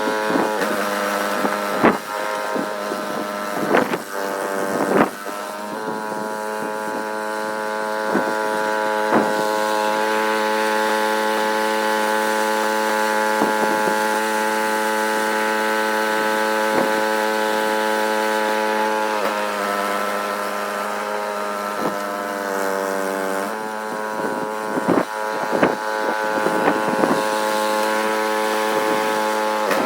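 Small gasoline engine of a snowblower running steadily, its pitch sagging for a few seconds about two-thirds of the way in before it recovers. A few sharp knocks come near the start and again near the end.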